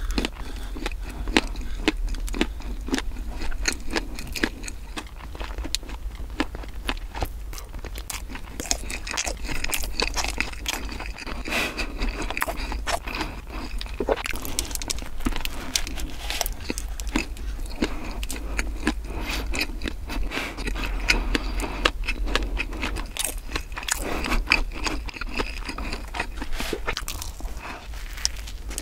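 Close-miked chewing of soft bread and sausage, with many small wet mouth clicks and crackles; a fresh bite into the crumb-coated sausage bread comes near the end.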